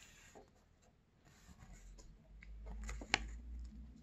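Faint rustling and crinkling of a thin paper collector's leaflet being handled and smoothed flat, with a sharp tick about three seconds in.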